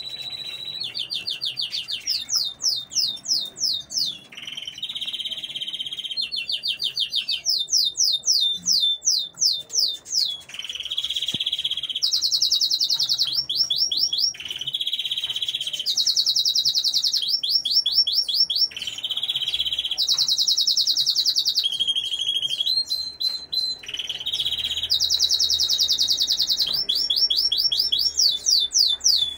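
Domestic canary singing: phrase after phrase of rapid, evenly repeated notes, each run a second or two long and pitched higher or lower than the one before, with hardly a pause between them.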